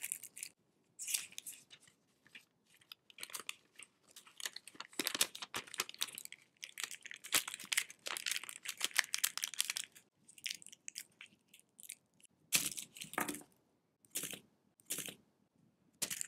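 Printed candy-wrapper paper crinkling and rustling in the fingers as milk candies are wrapped and the ends twisted. There is a dense run of crackles in the middle, then a few separate short crinkles near the end.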